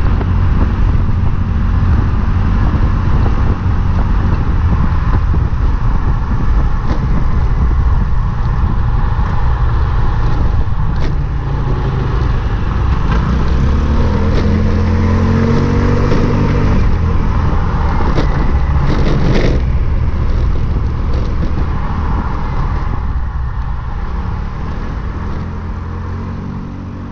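Road and wind noise from a moving vehicle heard through a camera mounted low on it, with an engine note that rises and falls around the middle. The sound fades away near the end.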